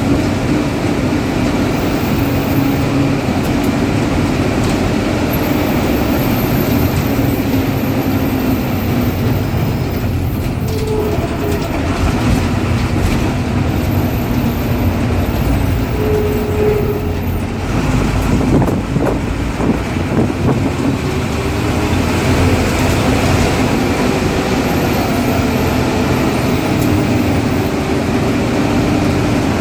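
Ashok Leyland bus diesel engine running under way, a loud steady drone whose note sags and rises as the bus changes speed. A faint, very high turbocharger whistle comes and goes over it.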